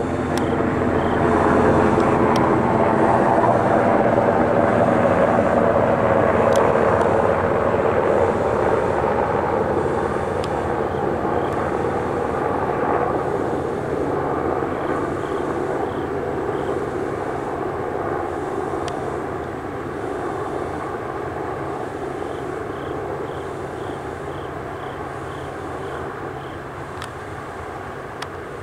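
Black Hawk military helicopter flying overhead: its rotor thump and turbine whine are loudest in the first several seconds, then fade steadily as it flies away.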